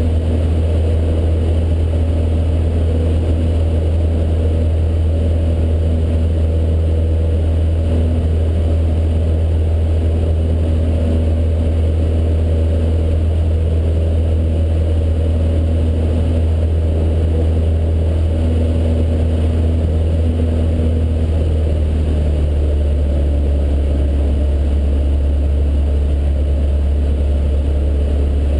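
Cessna 152's four-cylinder piston engine and propeller droning steadily in flight, heard from inside the cabin. The low drone shifts slightly about three quarters of the way through.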